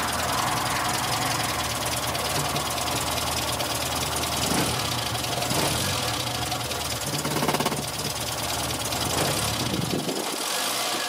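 Morris Minor's 1098 cc A-series four-cylinder engine idling, heard close up with the bonnet open.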